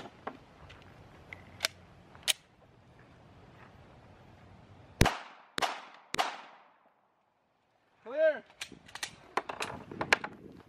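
Three 9mm pistol shots from a Glock 19, about half a second apart, each with a short ringing tail. A few smaller sharp clicks come before and after the shots.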